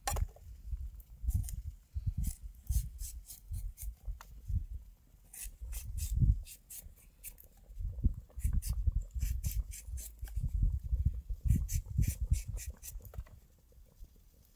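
Irregular clicking and scraping, with low thumps in between.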